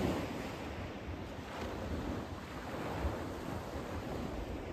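Small waves breaking and washing over a shingle beach, with gusts of wind buffeting the microphone.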